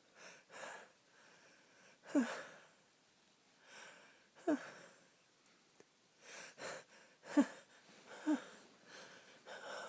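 A person with a head cold sneezing four times, short stifled sneezes each with a brief voice dropping in pitch, after wheezy in-breaths.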